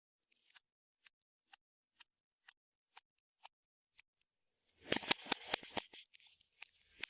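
Clear slime being pressed and stretched by hand, giving sharp clicks and pops: single clicks about two a second at first, then a dense, louder run of crackling pops about five seconds in that thins out toward the end.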